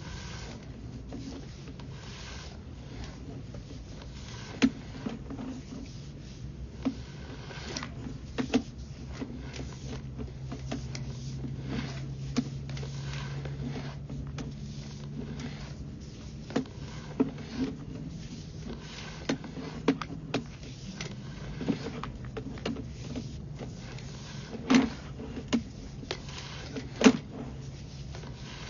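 Sewer inspection camera and push rod working through a drain line: irregular sharp knocks and clunks over a low steady hum, with the loudest knocks near the end.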